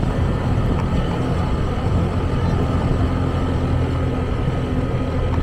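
Steady engine and road noise of a vehicle being driven: a constant low engine hum under a roadway rush.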